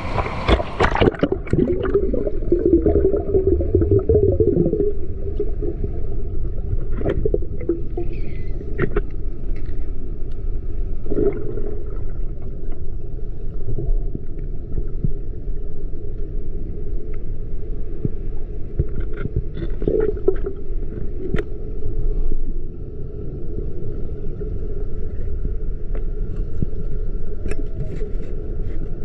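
River water heard underwater: a steady, muffled low rush with scattered knocks and scrapes.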